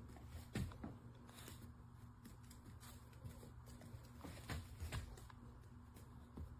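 Faint, scattered soft taps of a small dog's paws on foam pet stairs, over a faint steady low hum.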